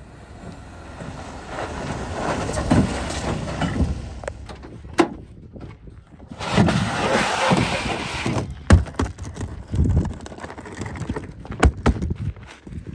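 A Jeep pickup driving on a dirt track for the first few seconds, then several sharp clunks and knocks as the truck's tailgate is opened and a hard rifle case is handled.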